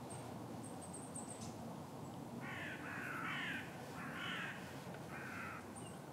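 A crow cawing: four harsh caws in quick succession, starting about two and a half seconds in, over a steady low outdoor rumble.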